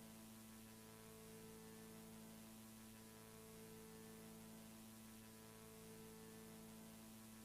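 Near silence with a faint, steady hum made of several held tones.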